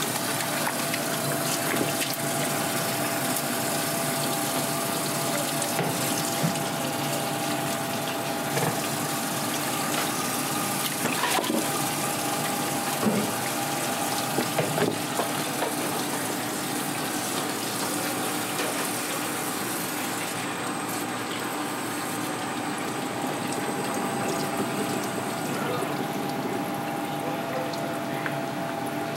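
Tap water running steadily from a flexible hose faucet onto a cutting board and into a stainless steel sink as a gutted porcupinefish is rinsed, with scattered small wet knocks of the fish being handled.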